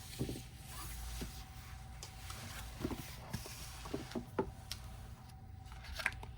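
Faint, scattered short clicks and light knocks over a low steady hum.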